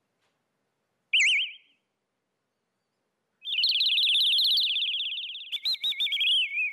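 Synthesized bird-tweet sounds generated by the CTAG text-to-audio system on the SynthAX modular synthesizer, from the prompt "bird tweeting": a short warbling chirp about a second in, then a longer, rapidly warbling trill that drifts down in pitch and ends in a falling glide, broken by a few clicks near the end. The sounds are clean and clear rather than noisy.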